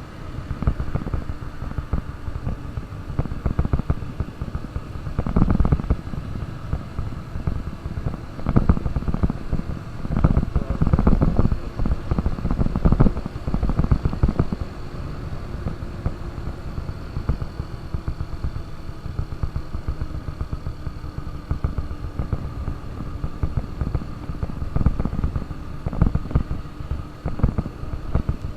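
KTM RC 200's single-cylinder four-stroke engine running as the motorcycle is ridden, a steady low rumble with several louder surges in the middle and near the end.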